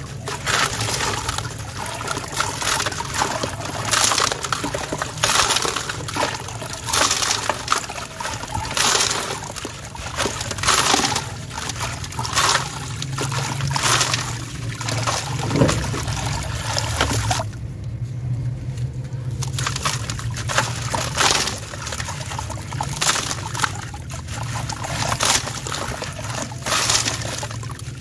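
Hands crushing a dry sand-cement chunk, with gritty crunches every second or two over a steady pouring hiss of grit and dust falling into a tub. The crunching stops for a moment about two-thirds of the way through.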